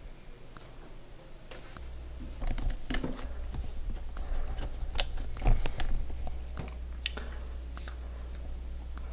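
Scattered light clicks, crackles and knocks of someone moving about and handling the camera in a debris-strewn attic room. The loudest knocks come about five seconds in, over a low steady hum that starts about two seconds in.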